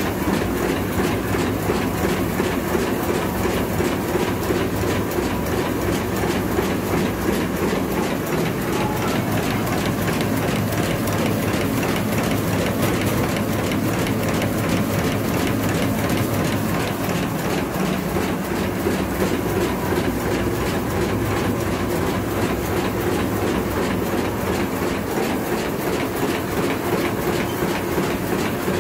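Double-decker plastic bag bottom sealing and cutting machine running steadily in automatic mode, at about 171 strokes a minute: an even, rapid mechanical clatter of its sealing and cutting strokes over a constant machine hum.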